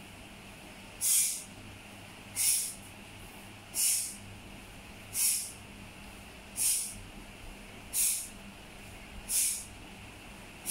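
Eight short hissing swishes, one about every second and a half, each coming with a block as a child works through a taekwondo four-direction block pattern (Saju Makgi).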